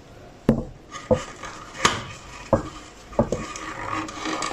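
A run of about five sharp clicks and knocks, spaced roughly every half second to second, as parts are handled and fitted at the back of a miter saw.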